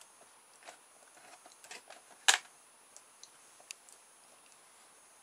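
Fingers handling and threading rubber loom bands together, making small clicks and light rustles, with one sharp, louder click a little over two seconds in.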